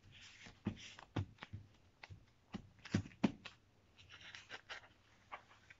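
Paper kitchen towel rustling and crinkling under the hands as washed sage leaves are patted dry, with scattered soft clicks and taps.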